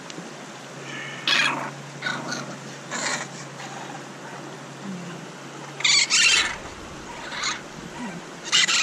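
Baby raccoon kits, about four to six weeks old, giving short, high-pitched cries, about half a dozen spread over several seconds, loudest about six seconds in and again near the end.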